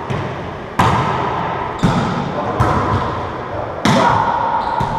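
A wallyball being hit back and forth in a rally: four sharp smacks about a second apart, each followed by a ringing echo off the walls of the enclosed racquetball court.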